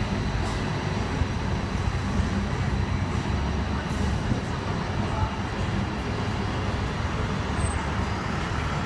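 Hong Kong double-decker electric tram running along its street track, a steady low rumble of wheels and motor heard from the upper deck, with road traffic around it.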